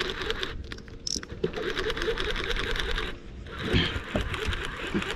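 Conventional fishing reel being cranked, its gears whirring with fast fine ticking in two long spells of winding and a short pause between, as a hooked snook that is barely fighting is reeled in.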